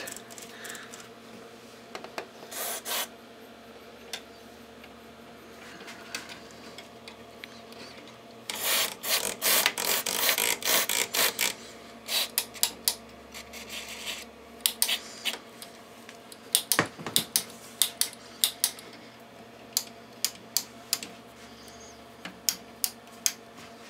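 Rotary switches and potentiometers of a Tenma 72-320 oscilloscope being turned back and forth to work contact cleaner into their dirty contacts: a dense stretch of rapid scraping and clicking about nine to eleven seconds in, then many separate irregular clicks as the switches step through their positions.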